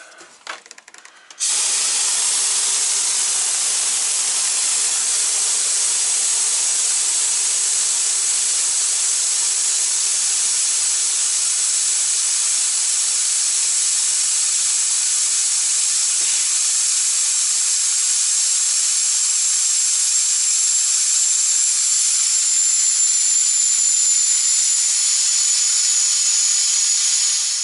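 Compressed air blasting out of a semi truck's air brake system as it is vented, a loud steady hiss that starts abruptly about a second and a half in, with a faint high whistle that drops slightly in pitch near the end.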